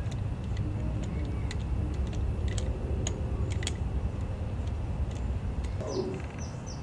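Scattered light clicks and taps of hand tools and small parts being handled on a dirt bike during oil-filter work, over a steady low rumble. Short high chirps start near the end.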